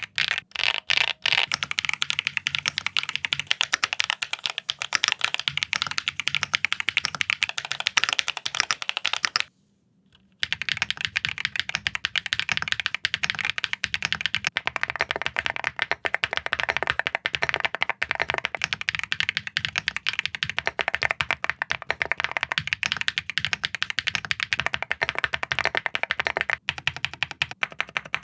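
Mechanical keyboard being typed on fast and continuously in a sound test: a dense run of clacky keystrokes that stops briefly about nine and a half seconds in, then resumes.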